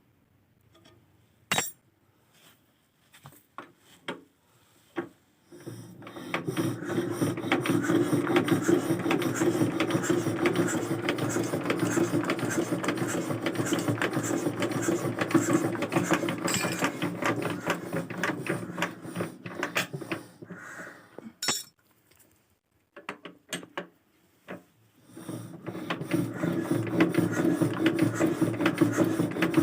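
Small single-cylinder 'dompeng' diesel engine running with a fast, even clatter. It runs for about fifteen seconds, cuts off, and starts again near the end. Before it, a few scattered clicks and knocks.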